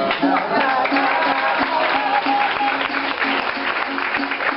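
Music with a regularly repeating low note and a melody over it, with an audience clapping; it all cuts off suddenly at the end.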